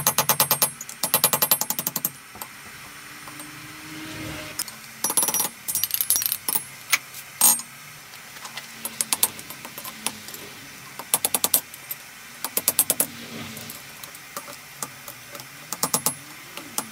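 Bursts of rapid, ringing hammer blows on a hot steel bearing race over an anvil, as it is split with a hot cut tool and opened out into a strip. The blows come in quick runs of several strikes with pauses between.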